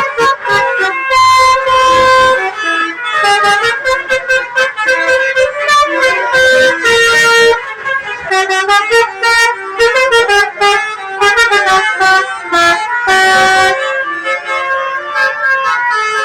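Indonesian bus 'basuri' telolet air horns playing loud, quick melodies of short stepped notes, several horn tones overlapping, as buses answer one another in a horn battle.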